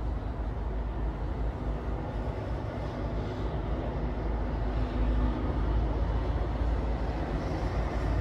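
Steady background noise with a deep low rumble under a softer hiss, growing a little louder about five seconds in.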